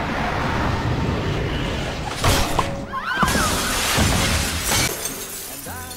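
Film action sound effects: a long crash with glass shattering, with heavy impacts about two seconds in and near the end, over a music track.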